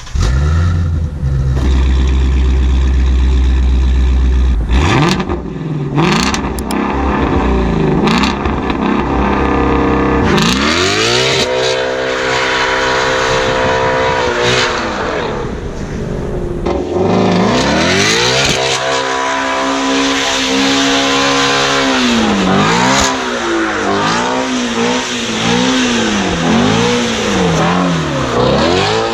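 Ford Shelby GT350's 5.2-litre flat-plane-crank V8 exhaust at high load: a steady deep run at first, a cluster of sharp exhaust cracks about five to eight seconds in, then the engine revving hard with its pitch climbing and falling. Near the end the revs swing up and down about once a second.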